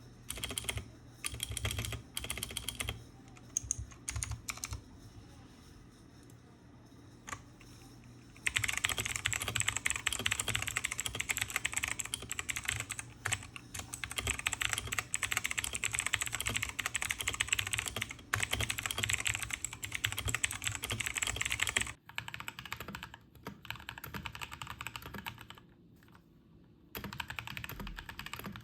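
Typing on a Redragon Fizz mechanical keyboard in a before-and-after sound test of Outemu Blue and Akko Matcha Green switches. It starts with scattered single keystrokes, turns into a fast, dense run of typing about eight seconds in, and after an abrupt break about 22 seconds in the typing resumes with a short pause near the end.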